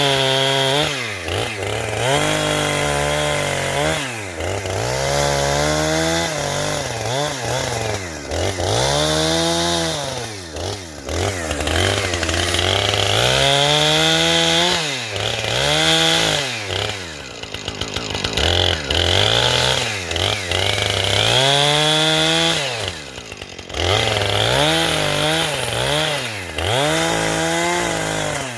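Two-stroke chainsaw cutting dead wood, its engine revving up and dropping back over and over, about every two seconds, with a few longer stretches held at high revs in the cut.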